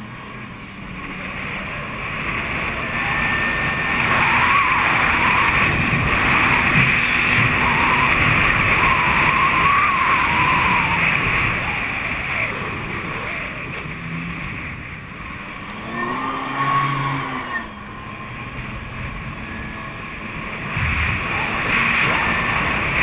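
Kawasaki Ultra 300LX jet ski running at speed: its supercharged four-cylinder engine together with the rush of water and wind. It builds over the first few seconds, eases off through the middle and picks up again near the end.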